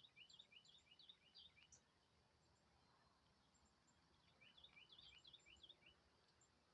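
Faint songbird song: two quick runs of short, sharp chirping notes, the first at the start and the second about four and a half seconds in, each lasting a second or two.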